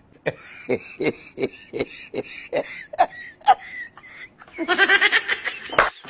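Laughter, in a steady run of short 'ha' bursts about two or three a second, then a louder, higher-pitched stretch of laughing about five seconds in.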